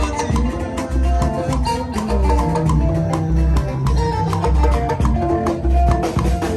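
A live band playing an upbeat tune, with a heavy bass pulse on a steady beat, melodic lines over it and busy percussion.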